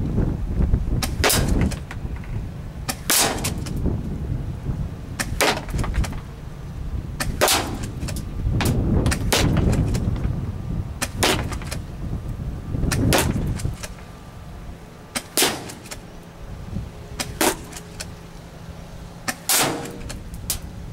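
DE M56A spring-powered pump-action airsoft shotgun firing about ten shots, one every two seconds or so, each a sharp crack. Wind gusts buffet the microphone and ease off about two-thirds of the way through.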